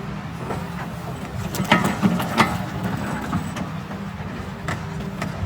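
Kobelco excavator's diesel engine running steadily under a handful of sharp clanks and knocks, the loudest about two seconds in.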